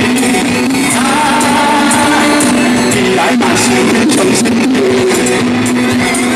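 Live rock band playing loud, steady music with a voice singing over it.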